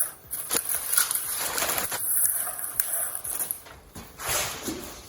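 Rustling and crinkling of packaging with a few sharp clicks and knocks as parts are handled and unwrapped.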